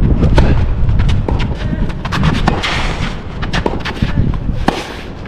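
Tennis ball being struck: a serve, then a rally of sharp racket-on-ball hits with bounces and footsteps between them. Wind rumbles on the microphone underneath.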